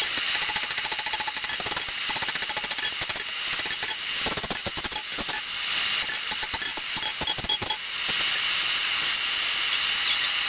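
Rapid, repeated hammer blows on hot steel as a cutlass tang is forged, over a steady hiss.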